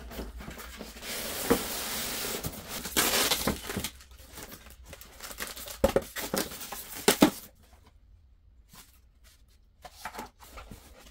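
Packaging of an RC plane kit being opened, with rustling, crinkling and tearing for the first few seconds. Then come scattered knocks and clicks as parts are lifted out and set down, fading to a few faint taps near the end.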